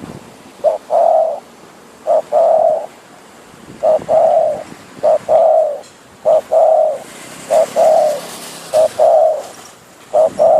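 Spotted dove, a wild-caught decoy bird, cooing: a two-part call, a short note followed by a longer one, repeated about every second and a quarter.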